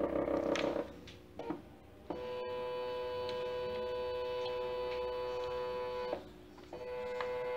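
NEMA 17 stepper motor (17HS4401) driven through an L298N H-bridge, singing at its step rate. A buzzing tone in the first second, then after a short lull a steady whine from about two seconds in. It cuts out briefly near the end and comes back at the same pitch.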